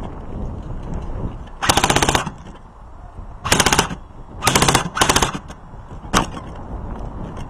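Airsoft gun firing on full auto: four quick bursts of about half a second each, then one very short burst near the end.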